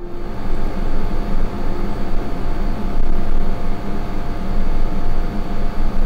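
Window air conditioner running loudly: a steady mechanical rumble and rush of air from the compressor and fan, with a low hum, starting suddenly.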